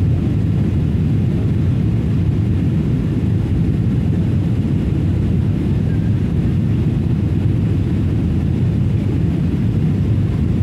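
Steady low drone of a jet airliner's engines and rushing air, heard from inside the passenger cabin on its descent.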